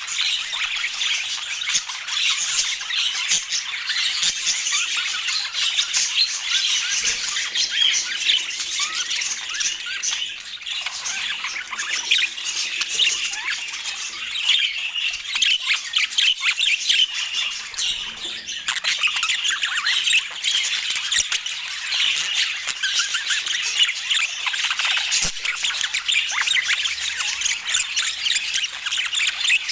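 Budgerigars chirping and warbling continuously, with high-pitched calls overlapping one another. There is one sharp click about 25 seconds in.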